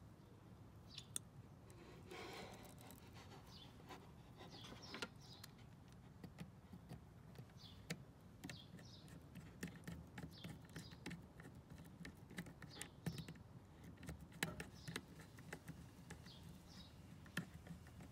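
Near silence broken by many faint small clicks and scratches from handling stranded speaker wire and tightening the screws of a small screw-terminal block with a screwdriver. Faint short high bird chirps come and go behind it.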